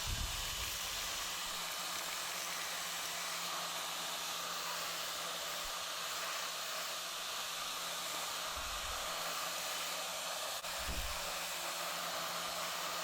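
Steady whooshing noise of a running electric appliance, like a hair dryer or vacuum cleaner, holding an even level throughout, with a couple of faint low thuds in the later part.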